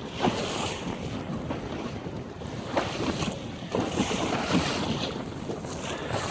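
Wind buffeting the microphone over water lapping against a boat's hull, with a few short slaps of water.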